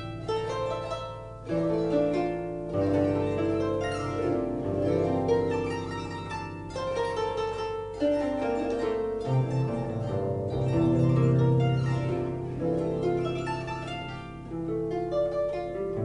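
Harp music: a flowing run of plucked harp notes over sustained low bass notes that change every second or two.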